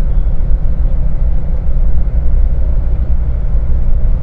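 Loud, steady low rumble of a moving vehicle on the road.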